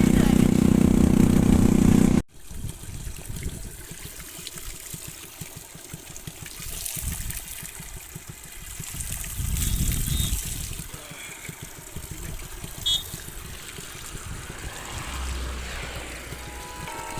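Background music that cuts off abruptly about two seconds in. It is followed by a steady rushing noise with low rumbles that swell and fade, and two brief high beeps near the middle.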